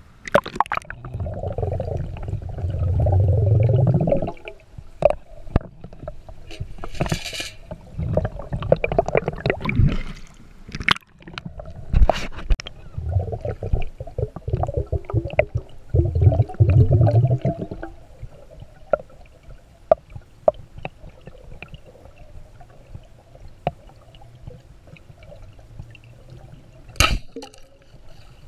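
Water sloshing and gurgling around a camera at and below a pool's surface, in uneven surges with scattered knocks and clicks. Near the end comes one sharp crack: a Niletec 110 band-powered speargun firing its shaft underwater.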